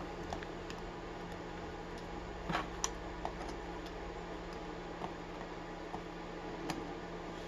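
Scattered light clicks and taps of needle-nose pliers working a stubborn part off a disassembled padlock, a slightly louder pair of clicks about two and a half seconds in.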